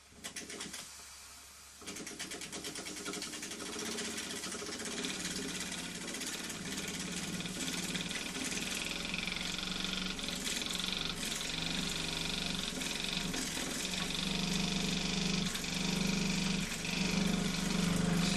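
Small model steam engine starting up about two seconds in and then running fast with a rapid, even mechanical beat that grows slowly louder.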